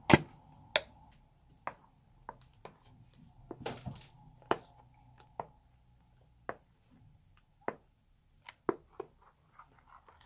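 Plastic scraper mixing thick white foam in a glass baking dish: a dozen or so sharp, irregular clicks and taps of plastic knocking against the glass, the two loudest within the first second.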